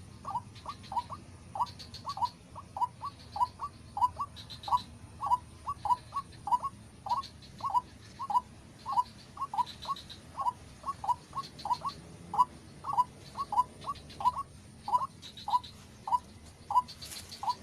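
White-breasted waterhen (ruak-ruak) calling: a monotonously repeated 'kru-ak' call, short notes dropping in pitch, about two to three a second and often in pairs.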